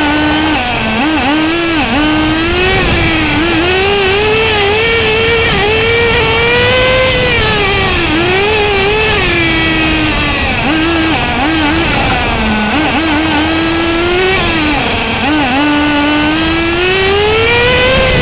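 RC car's nitro engine heard from onboard, revving up and dropping back again and again as the car accelerates down the straights and lifts off for the corners. The engine note climbs highest twice, in the middle and near the end.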